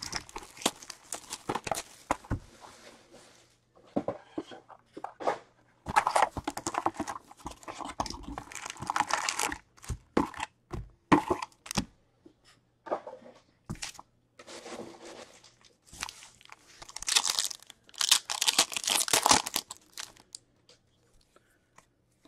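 Wrappers on a box of SP Authentic hockey card packs being torn open: plastic tearing and crinkling in irregular bursts, with small clicks and taps of handling between them.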